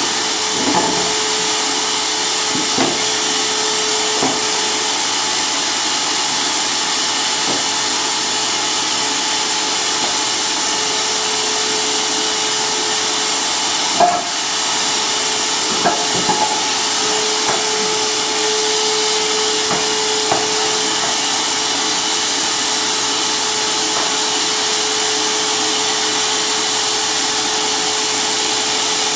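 Hyper Tough mini circular saw running steadily with a constant whine, with a few short knocks along the way, the loudest about halfway through.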